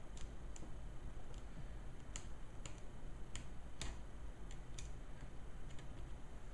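Faint, irregular light clicks and ticks of a small screwdriver driving the tiny mounting screws that hold a replacement laptop screen in place, about a dozen over several seconds.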